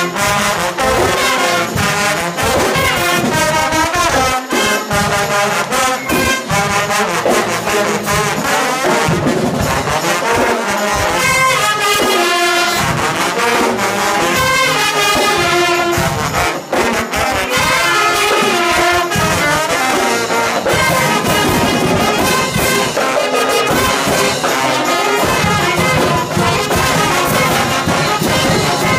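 Marching band playing live, brass-heavy, with trombones and trumpets leading and a flute in the mix: continuous, loud ensemble music.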